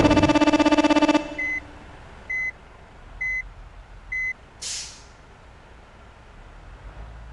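A loud multi-note melody cuts off about a second in. Then a large vehicle's reversing alarm beeps four times, about one beep a second, followed by a short hiss of air-brake release over a low engine rumble.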